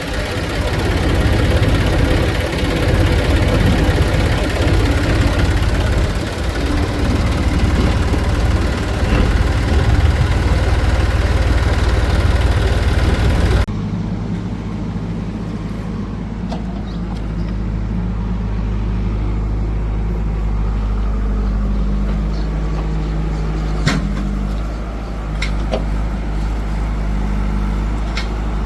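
Heavy diesel farm machinery running at work, loud and rough at first. About halfway through the sound cuts abruptly to a steadier, lower engine hum with a few sharp knocks.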